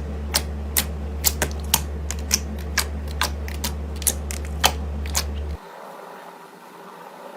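Slime being squeezed and worked by hand, giving sharp, irregular clicks and pops about two or three times a second over a low steady hum. About five and a half seconds in, the clicking and hum cut off abruptly, leaving a quieter, softer squishing.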